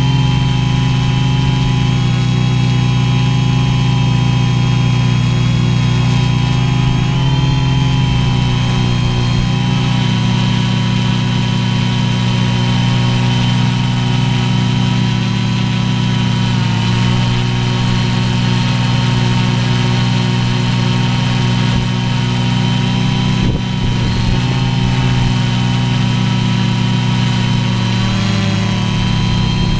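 Quadcopter's electric motors and propellers running with a steady multi-toned hum, heard close from the onboard camera, the pitch shifting slightly twice as it manoeuvres.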